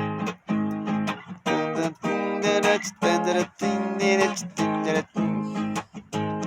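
Acoustic guitar strumming chords in a steady, choppy rhythm, each stroke cut short before the next.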